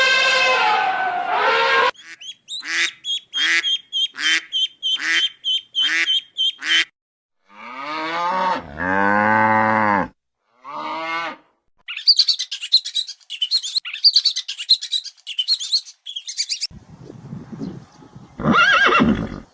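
A string of different farm-animal calls one after another: a run of about nine short, evenly spaced bird calls, then a few lower drawn-out calls, then rapid high chirping, and one loud call near the end.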